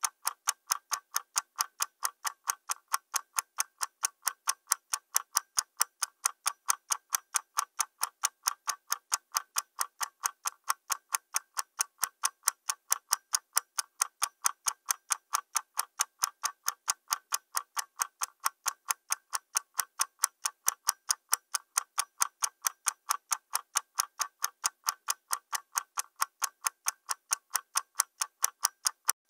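Ticking clock sound effect: a fast, even run of sharp ticks that keeps time with an on-screen stopwatch counting the elapsed seconds.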